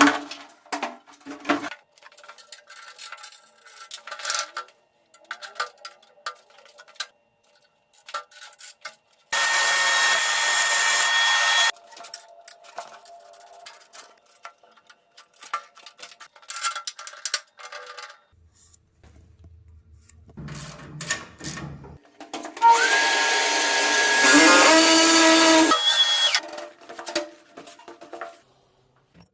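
Clicks and knocks of tool and fitting work, with two bursts of a power drill running, the first about two seconds long and the second about three seconds, rising in pitch as it runs.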